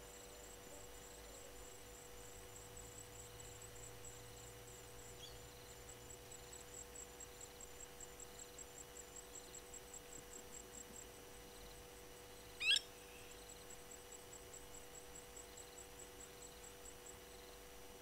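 A steady, evenly repeated high-pitched insect chirping, with a single short, shrill bird call about two-thirds of the way through.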